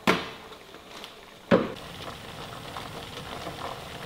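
Two sharp metallic clanks, each with a short ring, from a stainless-steel steamer pot: one at the start and one about a second and a half in. A steady low hiss from the gas burner under the pot follows.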